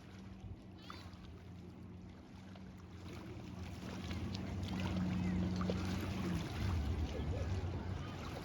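Motorboat engine running with a steady low hum under a wash of wind and water noise, growing louder about halfway through; near the end the hum's higher tone drops out as the engine note changes.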